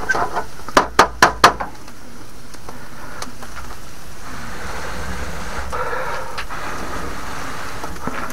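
Barbecue grill hardware clacking four times in quick succession about a second in, while the grill is being adjusted to raise the heat for searing steaks; then steady background noise.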